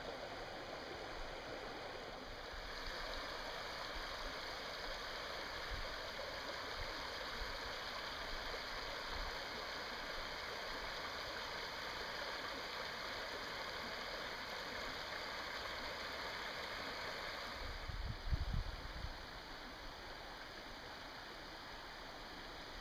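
Steady hiss of flowing river water. A few low thumps on the microphone come about eighteen seconds in, and the water is a little quieter after them.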